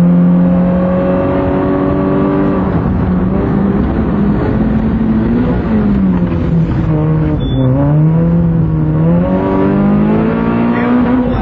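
Citroën C2 rally car's engine heard from inside the cabin under hard driving. The revs hold steady, then rise and fall several times, dip lowest past the middle, and climb steadily again toward the end.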